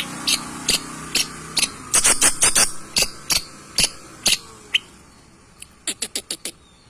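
Long-tailed shrike (cendet) singing in short, sharp, clipped notes at an uneven pace, with a thick cluster about two seconds in. It ends in a quick run of about eight notes near the end.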